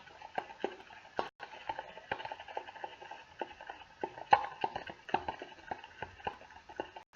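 Thick slime glue with pink paint being stirred, making irregular sticky clicks and taps, a few each second, the loudest about four seconds in.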